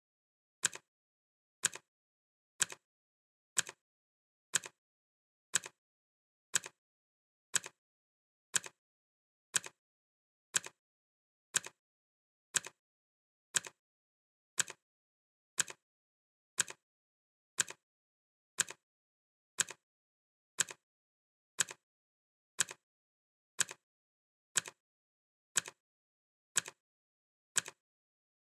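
Clock ticking sound effect: single sharp ticks, one a second, with silence between them.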